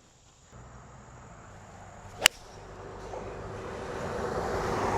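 A single sharp crack of a 1-iron striking a golf ball off the tee, about two seconds in. Behind it is a rushing noise that grows steadily louder.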